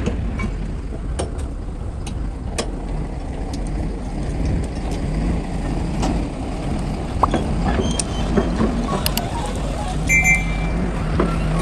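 Heavy earthmoving machinery's diesel engine running steadily, with scattered metallic clanks and knocks. A short high beep sounds about ten seconds in.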